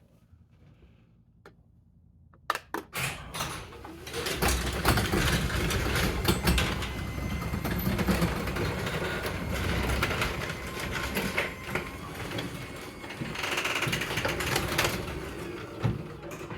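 Sectional garage door driven by a wall-mounted garage door opener: a few clicks, then the door rattling and rumbling steadily along its tracks for about twelve seconds before it stops near the end.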